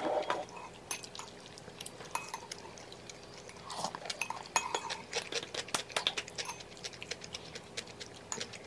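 Close-miked eating sounds: chopsticks clicking against the plate and pan. About four seconds in, a mouthful of malatang noodles is taken and chewed.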